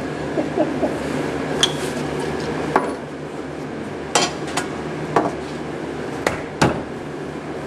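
Scattered light knocks and clinks of small hard objects being handled, about seven in all, over a steady background hum.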